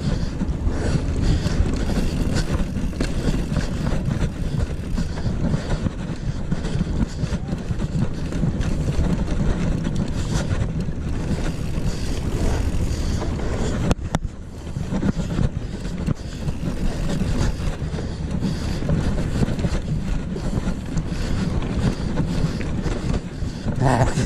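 Wind buffeting the microphone of a handlebar-mounted action camera, mixed with the rumble of mountain bike tyres rolling over a packed dirt track; a steady low rumble with a short lull a little past halfway.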